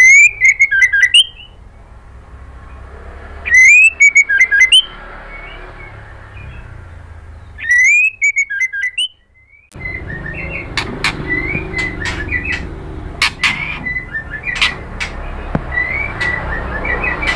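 White-rumped shama calling: three loud bursts of rising whistled notes, about four seconds apart, then after a brief gap a run of shorter, quicker chirps and sharp ticks over a steady background hiss.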